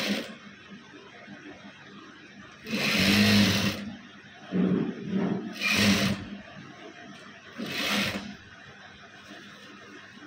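Sewing machine stitching in four short runs, the longest about a second, with pauses between them.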